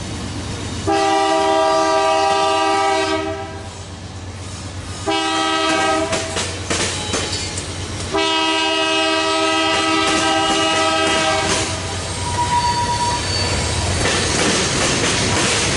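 Freight train's multi-note air horn sounding three times, long, short, long, over the rumble and clickety-clack of tank cars and a covered hopper rolling past. A brief high wheel squeal comes near the end.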